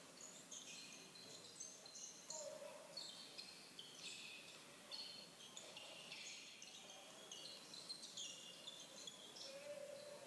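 Faint basketball sneaker squeaks on a hardwood gym floor, many short high squeaks in quick succession, heard through a computer's speakers.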